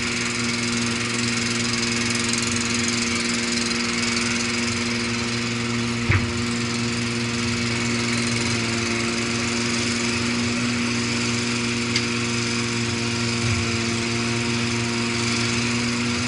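Excavator's diesel engine running steadily while the hydraulic boom swings the loaded bucket out, with a couple of faint clicks about six and twelve seconds in.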